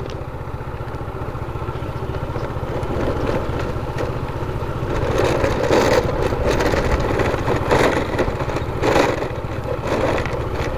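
Motorcycle engine running steadily while riding, with rougher tyre and road noise building up from about five seconds in.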